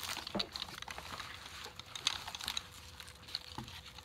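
Nylon tactical chest rig being handled: fabric and webbing rustling, with scattered light, irregular clicks and taps from its straps and plastic buckles.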